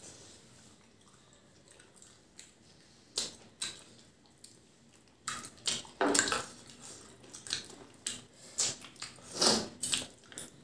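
Close-up eating sounds: wet lip smacks, chewing and the squish of curried rice and chicken on the bone worked by hand, in short sharp bursts. Sparse for the first three seconds, then busier and louder from about five seconds in.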